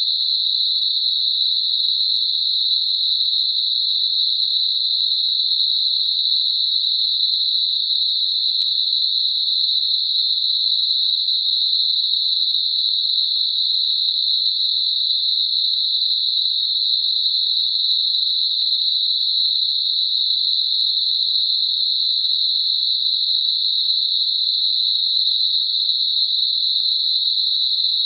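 Computer-generated Gaussian narrow-band noise centred at 4 kHz, a tinnitus masker: a steady, even, high-pitched hiss that stays the same throughout.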